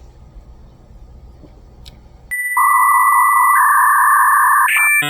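Sudden loud electronic beep about two seconds in, held steady for about two seconds. It ends in a short, stuttering burst of several tones at once, which cuts off abruptly.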